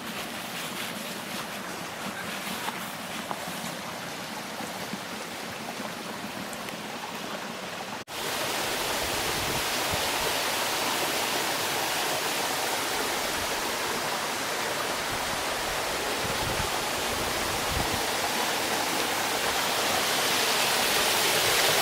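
Rushing water from a waterfall and stream. It is softer at first, with faint clicks. After a sudden cut about eight seconds in it becomes a louder, steady rush that swells a little near the end.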